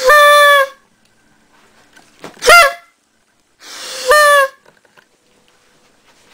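A party blowout horn blown three times in short blasts of about half a second each. Each blast is a flat, reedy honk; the first and last start with a rush of breath, and the middle one is shorter and rises at its start.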